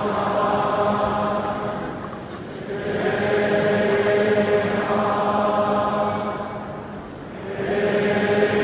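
Arena crowd of Kansas basketball fans singing together in slow, long-held notes. The sound swells and sinks about every five seconds, dipping twice.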